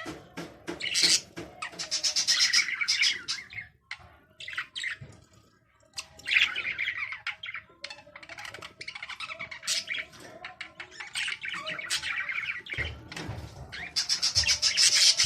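Small birds chirping in rapid, repeated bursts, several calls overlapping.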